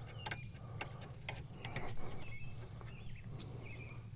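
Light, irregular metallic clicks and taps of a wrench working on a hydraulic line fitting as the line is twisted off, over a steady low hum.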